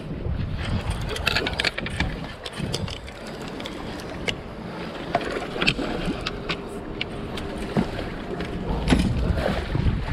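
Scattered clicks and knocks from rod, reel and boat handling over a low rumble of wind and water, as a hooked redfish is fought at the side of the skiff and brought to the net.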